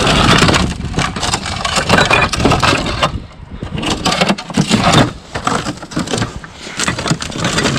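Household junk being rummaged through and handled: plastic containers and other objects clattering, knocking and scraping against each other in irregular bursts.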